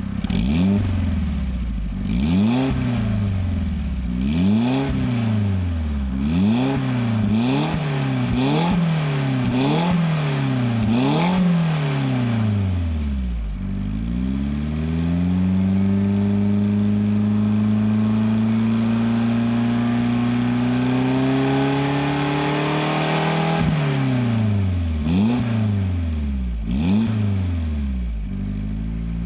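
Mitsubishi Toppo BJ's 660 cc turbocharged inline-four (4A30) revved while parked, heard at the tip of its HKS Hi-Power muffler. A quick run of about a dozen short throttle blips gives way to a long, slow climb in revs held for about nine seconds, then a sudden drop and three more blips before it settles back to idle.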